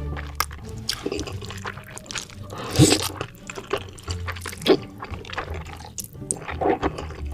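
Close-up mukbang eating sounds: a person slurping and chewing sticky spicy instant noodles, with irregular wet smacks and clicks and a louder slurp about three seconds in.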